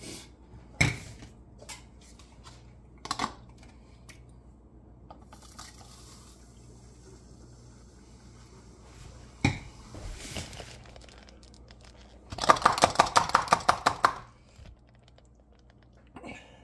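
Sugar being added from a measuring cup through a funnel into a glass gallon jug: a few separate knocks and clinks, a short soft pouring hiss, then near the end a fast run of taps, about ten a second, lasting a couple of seconds.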